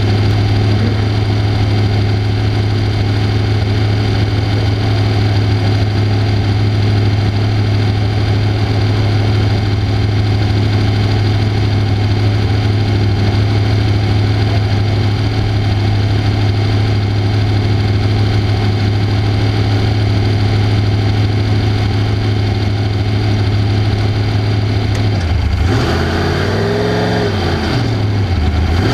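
Off-road race car's engine running at a steady pitch. About 26 seconds in, the revs rise and fall back over a couple of seconds, then settle slightly lower.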